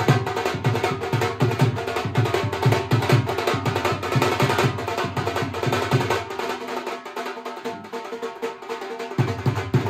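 Dhol drum played in a fast, steady beat, with deep bass-side strokes under sharp stick strokes on the treble side. About six seconds in, the deep strokes stop for around three seconds while the sharp strokes carry on, then they come back.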